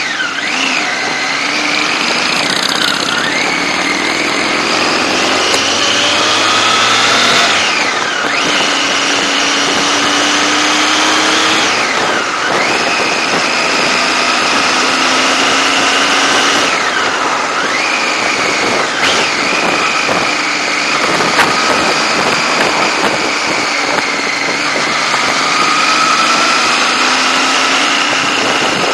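Motorcycle engine running while the bike is ridden. Its pitch climbs as it accelerates and drops sharply at each gear change, several times, over a steady rush of wind noise.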